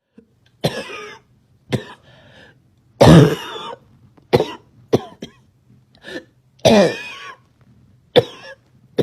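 A girl's barking cough that keeps on: about eight harsh coughs at uneven intervals. The loudest and longest comes about three seconds in, and another long one near seven seconds.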